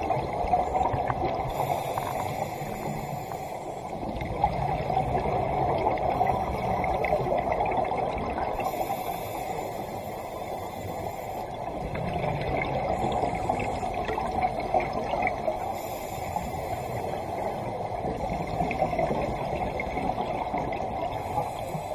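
Scuba diver breathing through a regulator underwater: a slow cycle of breaths, a hiss on each inhale and a long bubbling, gurgling exhale, repeating roughly every seven seconds.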